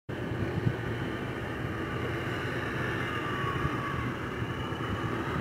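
Diesel engine of a purse-seine fishing boat running under way, a steady low drone with a broad hiss over it.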